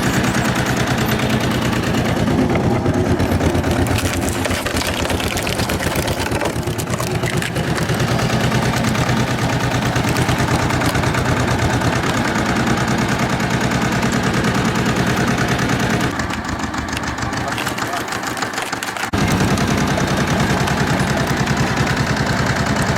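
Engine running steadily, its rapid, even firing beats clearly heard. About two-thirds of the way through it goes quieter and duller for about three seconds, then comes back at full level.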